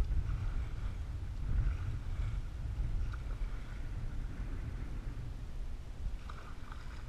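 A canoe being paddled across choppy water: short splashy paddle strokes about once a second over a steady low rumble.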